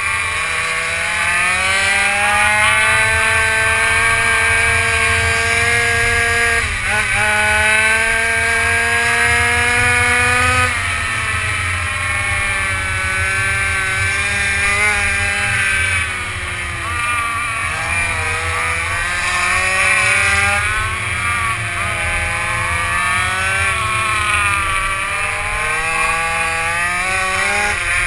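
Racing quad's engine heard onboard, running hard around a track, its note climbing and falling again and again as the throttle is worked through the corners, with a brief sharp dip about seven seconds in.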